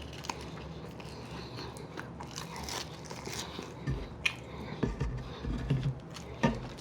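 Chewing and biting food, with scattered crunches and wet mouth clicks; the sharpest crunch comes shortly before the end.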